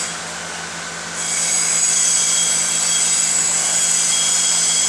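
Steady machine whir with a high-pitched whine over a low hum, quieter for about the first second and then louder.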